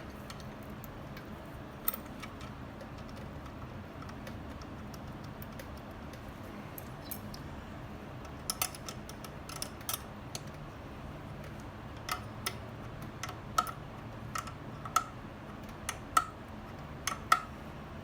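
Light clicks and taps of parts and hand tools being worked on a motorcycle carburetor and choke cable, about a dozen sharp clicks, mostly in the second half, over a steady low hum.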